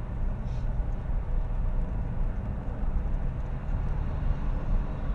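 Steady low rumble of a car's engine and tyres on the road, heard inside the moving car's cabin.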